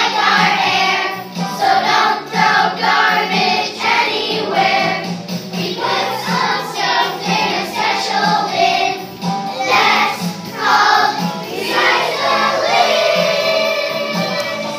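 A song sung by a group of children's voices over backing music, with a regularly repeating low bass note.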